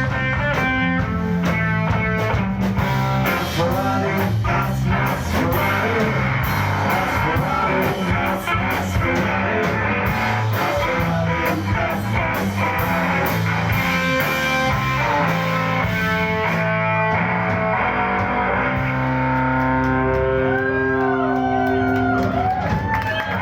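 Rock band playing live: guitars over bass and drums. The drums stop about two-thirds of the way in, leaving held guitar notes with sliding, bent pitches.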